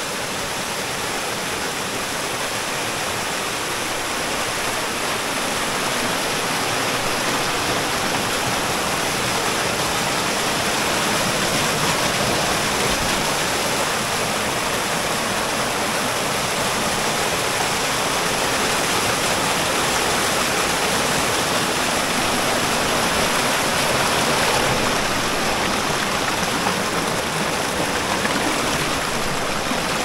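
Mountain stream rushing and splashing over boulders and small cascades: a steady, dense water noise that swells a little over the first several seconds.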